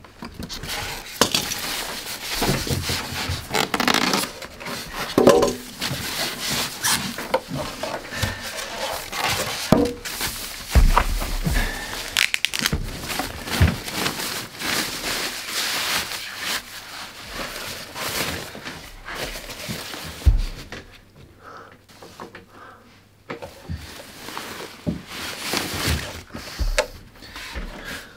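Plastic wrapping bag rustling and crinkling and polystyrene foam packing blocks being pulled off while a subwoofer is unpacked by hand, with a couple of low thumps, about eleven and twenty seconds in.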